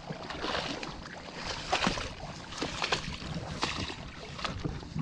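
Footsteps and legs swishing through tall wet grass on marshy ground, about one stride a second, with a steady rustle between the steps.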